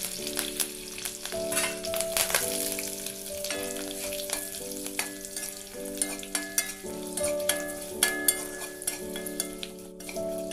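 Dried red chillies and curry leaves sizzling in hot oil in a kadai, with a metal spatula stirring and clicking against the pan. Soft background music with held chords runs underneath.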